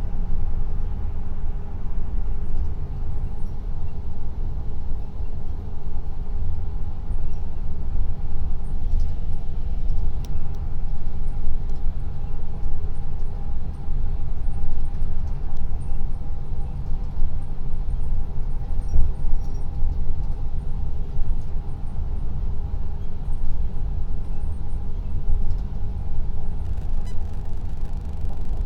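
Steady road and engine rumble inside a car's cabin at highway speed, heavy in the bass, with a faint steady hum over it.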